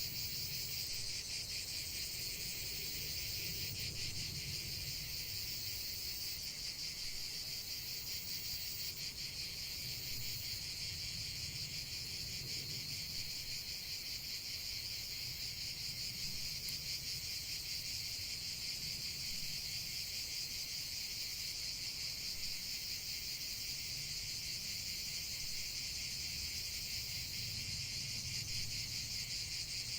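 Steady chorus of crickets, a continuous high, finely pulsing trill, with a soft low rumble underneath.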